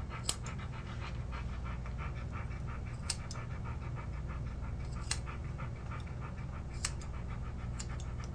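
Airedale terrier panting quickly and steadily, with about five sharp snips of grooming scissors spaced through it as the ear edge is trimmed.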